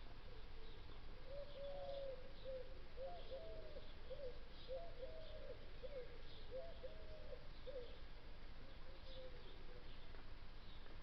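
A pigeon cooing, a long run of repeated cooing notes that dies away about eight seconds in, with faint chirps of small birds higher up.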